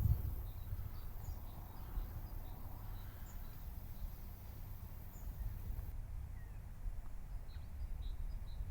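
Faint, high chirps of small birds calling over a steady low rumble of wind on the microphone, with a quicker run of short chirps near the end.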